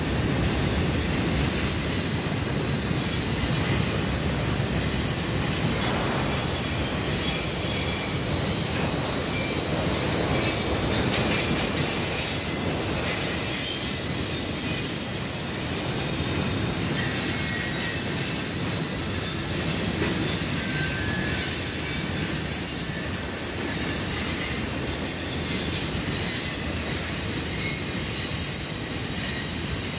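Freight cars rolling past close by: a steady rumble of steel wheels on rail, with a thin high-pitched squeal from the wheels running through it.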